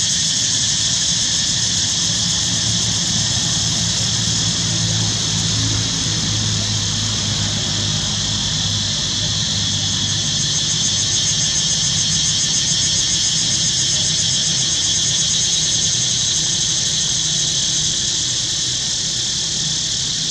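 Loud, steady, high-pitched insect chorus with a fast, even pulsing, going on without a break.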